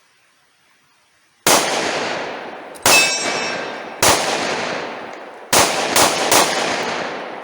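Six 9mm shots from a Glock 43X subcompact pistol firing carry ammunition, each followed by a long echoing tail. Three come about a second and a half apart, then a quick string of three near the end.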